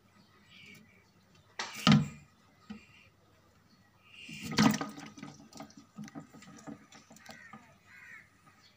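Water splashing in a shallow turtle tank as a pet turtle is pushed off its rock: two loud splashes, about 2 and 4.5 seconds in, then a patter of smaller splashes and drips.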